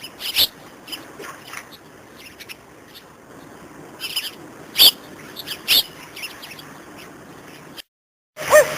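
Birds calling: short, high, sharp calls in small groups about half a second in and again around four to six seconds, over a faint background hiss. Near the end the sound drops out briefly and another recording starts, with lower whistled notes.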